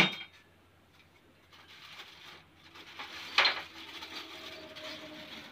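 Small objects being handled and set down: a sharp knock at the start, then soft rustling and a louder clatter about three and a half seconds in.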